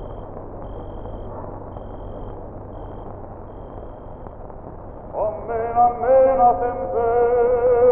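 Hiss of an old film soundtrack, then about five seconds in a slow chant-like melody begins, sliding up into long held notes that change pitch only in small steps.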